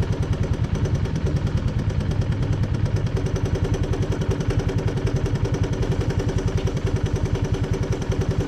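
Small vehicle engine idling with an even, rapid pulsing beat, just after being started on a dead battery.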